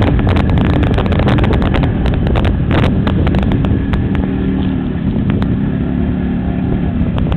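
100cc Yamaha motorcycle engine running steadily at low road speed, heard from on the bike with wind rumbling on the microphone and a few short clicks and knocks.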